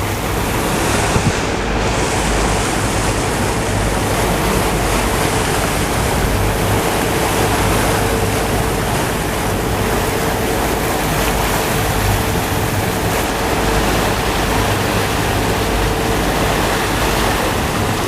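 Sea surf washing steadily, mixed with wind buffeting the microphone, and a faint steady hum underneath.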